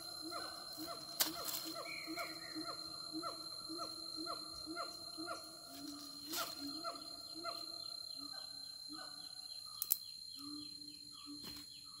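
Forest ambience: a wild animal's pitched call repeated about three times a second, over a steady high-pitched tone, with a few sharp clicks.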